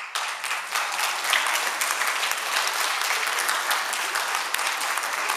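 Audience of children applauding, a dense clatter of many hands clapping at a steady level.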